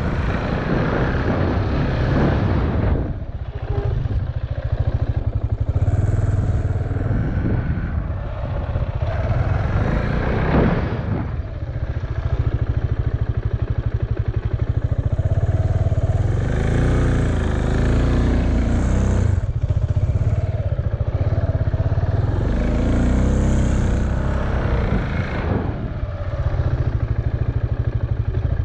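KTM Duke motorcycle engine heard from the rider's helmet, running steadily and swelling and dropping off about four times as the bike accelerates and then brakes hard in braking practice.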